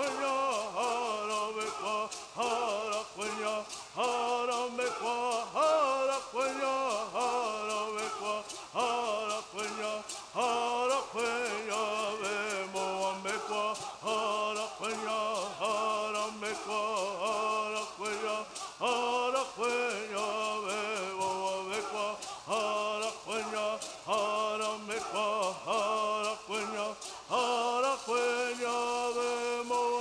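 A group of men singing a Southern California Native American bird song in unison, to a steady rhythm of shaken gourd rattles.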